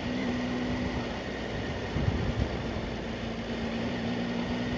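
Motorcycle engine running steadily at low road speed, heard from the rider's own bike over wind and road noise, with two short bumps about two seconds in.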